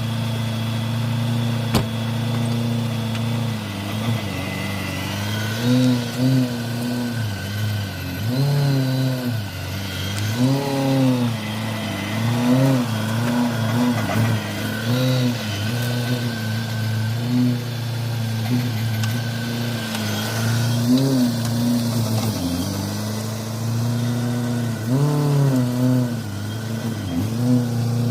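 Supercharged BMW E92 M3's V8 running at low speed, the revs rising and falling briefly every couple of seconds as the car is eased along under light throttle.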